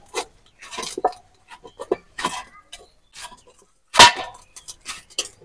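Hands kneading maida dough in a stainless-steel bowl: scattered soft knocks and light clinks of the bowl, with one louder thump about four seconds in.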